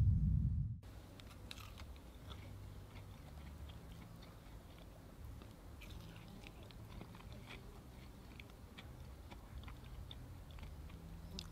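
Close-up chewing and biting of a fried potato cutlet: small scattered crunches and mouth clicks. It opens with a loud low buzz that cuts off abruptly under a second in.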